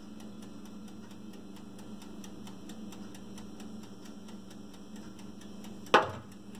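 Steady low electrical hum with faint regular ticking; about six seconds in, a single sharp clunk as a metal baking pan is set down on the counter.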